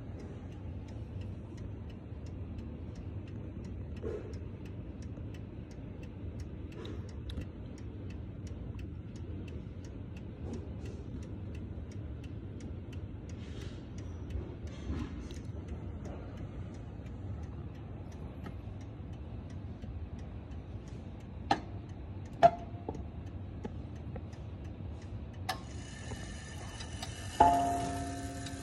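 Ansonia crystal regulator clock ticking steadily, with a few louder clicks after about three-quarters of the way through. Near the end it strikes the hour on its coiled wire gong: one loud stroke that rings on.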